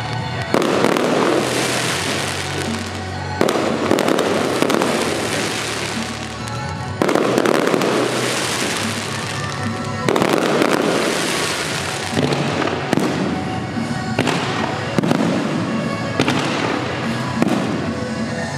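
Aerial firework shells bursting overhead one after another, each a sudden bang followed by a long crackling hiss. The bursts come every three seconds or so at first and follow more closely in the second half.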